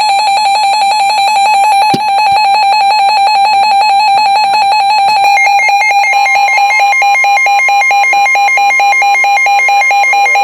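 Weather radio sounding its warning alarm: a loud, rapidly pulsing electronic beep that starts abruptly. About six seconds in, a steady higher tone joins it, the NOAA Weather Radio 1050 Hz warning tone. A brief click comes about two seconds in.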